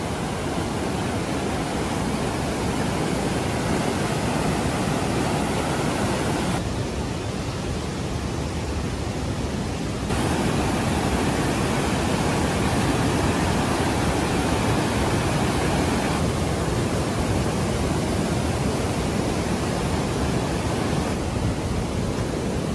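Steady rushing of running water from a mountain stream, a noise with no tones in it that shifts abruptly in level and tone several times.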